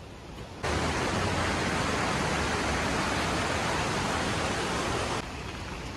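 Heavy rain falling, a steady rushing hiss that starts abruptly about half a second in and cuts off abruptly about five seconds in.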